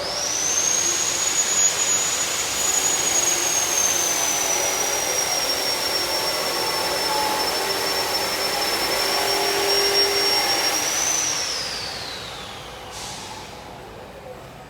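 A high-speed electric motor, blower-like, running with a loud rushing sound and a high whine, then winding down: the whine falls in pitch and the sound fades out about eleven seconds in.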